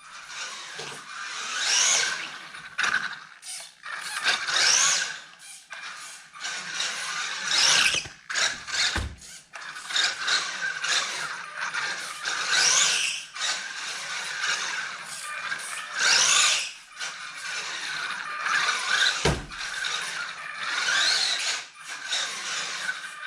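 Electric drive motor and gears of a Maverick ION DT 1/18 RC truck whining in repeated bursts that rise in pitch as it speeds up, then fall away. Two dull thumps, about nine and nineteen seconds in.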